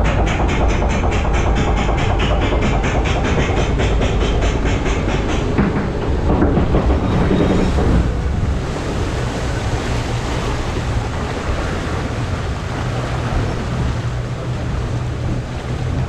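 A water-ride boat being hauled up its lift ramp, the lift mechanism clattering in a rapid, even clicking of about four a second over a rumble. About five seconds in the clicking stops, leaving a steady low rumble and hum.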